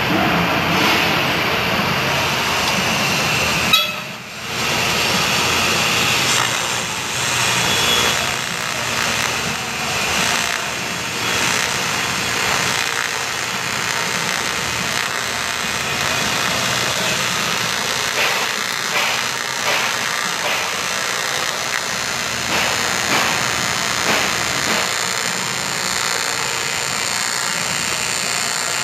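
TIG welding arc on 6061 aluminum, a steady buzzing hiss, with a sharp click and a brief drop in level about four seconds in.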